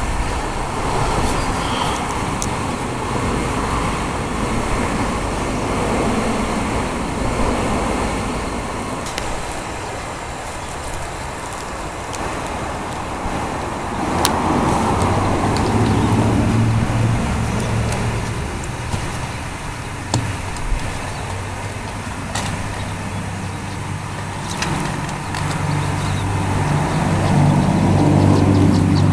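Road traffic: vehicles passing one after another, each swelling and fading. A low engine hum comes in about halfway through and again, louder, near the end.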